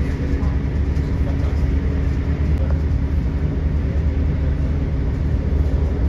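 Steady low rumble of a diesel commuter train running at speed, heard from inside the carriage, with a constant hum under it.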